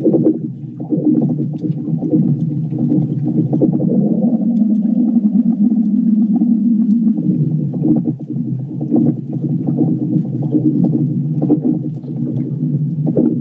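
Loud, low, continuous droning groan of several layered tones, with a grainy rumble; a deeper tone joins partway through and drops out about seven seconds in. It is the 'strange sky sound' of apocalypse hoax clips, which the uploader calls fakery.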